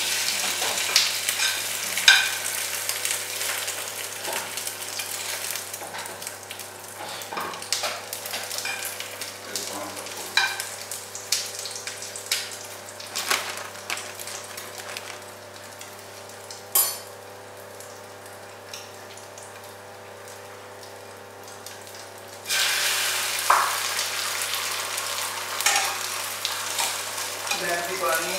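An omelette frying in a non-stick pan on a gas stove: a steady sizzle with many scrapes and taps of a metal utensil against the pan. The sizzle quietens for several seconds past the middle, with one sharp clack, then comes back loud about 22 seconds in.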